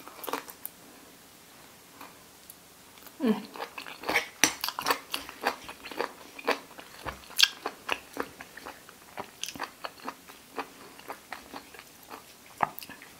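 Close-up chewing of boiled pig ear, its cartilage crunching between the teeth. A few clicks at the start, then from about three seconds in a dense run of rapid, crisp crunches.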